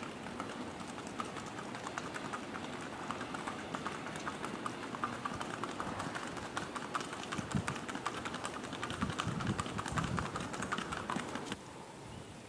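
Rapid, even hoofbeats of a Paso Fino horse under saddle, moving in the breed's quick four-beat gait on a hard path. The hoofbeats cut off near the end.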